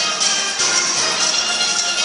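Steel band playing: the steelpans' ringing pitched notes over a busy, steady high rattle of rhythm percussion.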